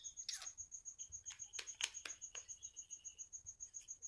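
A cricket chirping in a steady, rapid high pulse, with a few sharp small clicks and taps from a plastic lipstick tube and cap being handled, the loudest about two seconds in.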